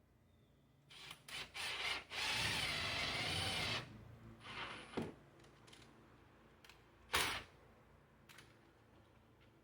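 A power drill runs for under two seconds during a transfer switch installation, its pitch wavering slightly. Scattered clicks and knocks from handling tools and hardware come before and after it, with one sharper knock later on.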